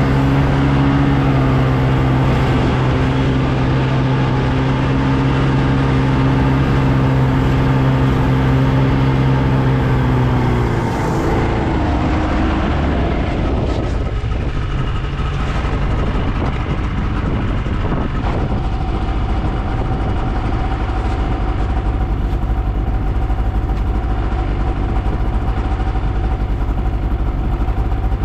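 Motor vehicle engine running at a steady pitch, then falling in pitch about eleven seconds in as the vehicle slows. After that it runs on at a lower, rougher pitch.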